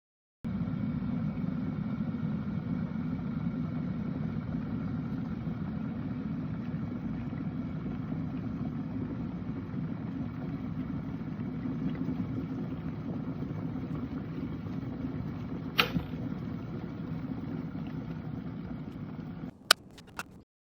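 Electric kettle heating water: a steady low rumble with a faint hum. A sharp click comes partway through, and the rumble cuts off suddenly near the end, followed by two quick clicks.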